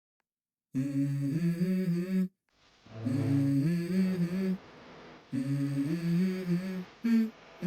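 Background music: the intro of a pop/hip-hop song, a voice humming three short 'mm-hmm' phrases over soft backing, starting just under a second in after silence.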